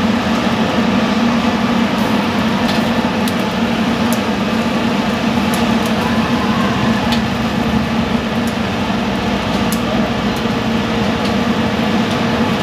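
Steady low hum and rush of a street-food stall, with light metallic clicks every second or so from metal tongs and scissors handling grilled meat.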